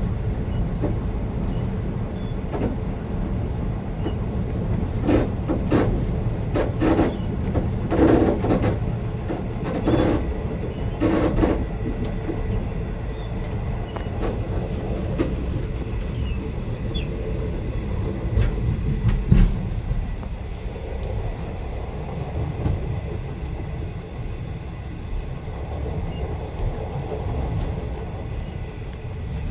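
Steady low rumble inside a moving V/Line passenger carriage, with a run of wheel clacks over rail joints between about five and twelve seconds in, and a single louder bump a little later.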